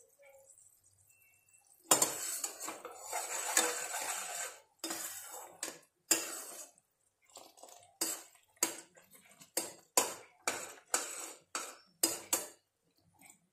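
A spatula stirring and scraping in a non-stick kadai of bubbling sugar syrup as it is cooked toward one-string consistency. A couple of seconds of continuous scraping begin about two seconds in, then sharp knocks of the utensil against the pan follow, about two a second, near the end.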